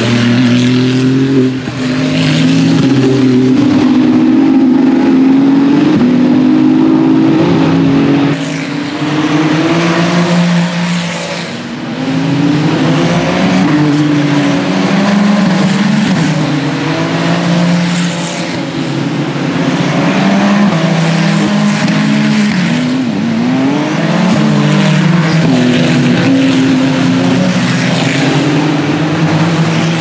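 Ferrari race cars' engines at racing speed, one car after another passing through the corner. Their pitch climbs and drops in steps as the drivers shift gears, loud and continuous.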